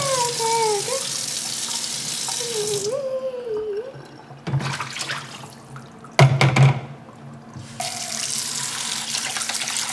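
Kitchen tap running into the sink as a mixing bowl and spoon are rinsed. The water stops about three seconds in, a few loud knocks from the dishes follow, and the water runs again near the end.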